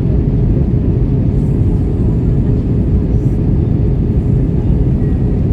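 Steady, loud low rumble of an Airbus A320 in flight, engine and airflow noise heard from inside the cabin, unchanging throughout.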